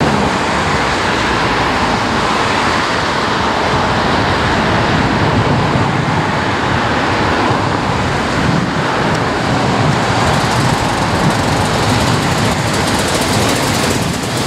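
Steady road traffic noise: engines and tyres of a convoy of tractors, vans and motorcycles, with cars on the road.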